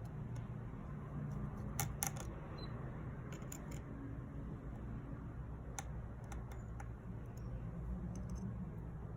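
Scattered light clicks and taps of small repair tools and parts on a phone being reassembled, in a few quick clusters, over a steady low hum.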